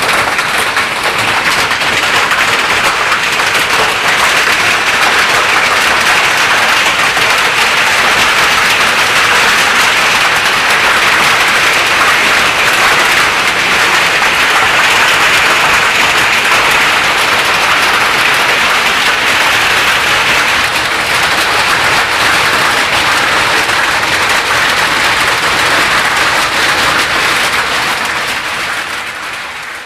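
Heavy hail pelting corrugated tin roofs and the ground: a dense, steady clatter like applause, fading out near the end.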